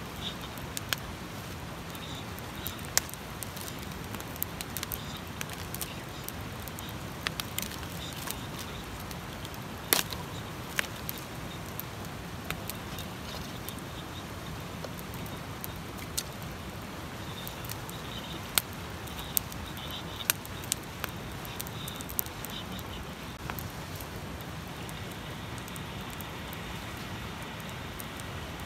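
Wood campfire crackling: a steady hiss with irregular sharp pops and snaps.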